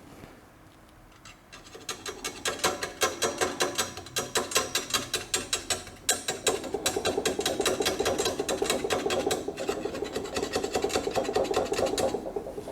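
Welding arc crackling in a rapid, even sputter that starts about two seconds in and stops shortly before the end, laid over steel that still carries powder coating, which the welder blames for his trouble getting good welds.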